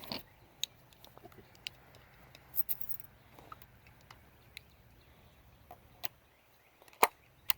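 Shotgun shells being handled out of their box, with faint scattered clicks, rattles and taps. Two sharp, louder clicks come near the end.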